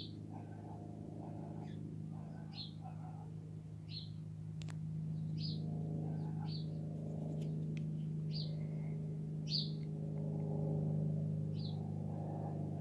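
A small bird chirping, short high chirps every second or two, over a steady low hum that grows a little louder mid-way. A single sharp click comes a little before the halfway point.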